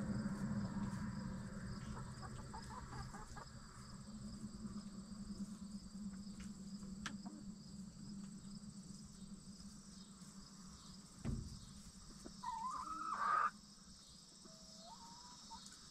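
Backyard hens calling: one drawn-out, wavering call about three-quarters of the way through, the loudest sound here, and a shorter rising call a second or so later. Behind them is a steady chorus of crickets. A low hum fades away over the first few seconds, and there is a single dull thump a little before the first call.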